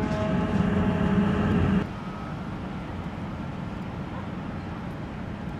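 Steady low rumble of ship and tugboat engines. It is louder for the first two seconds, then drops suddenly to a quieter, even hum.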